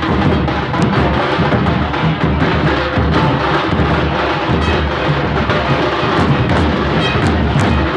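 Loud, continuous drum beating with many quick strikes, over the din of a packed crowd.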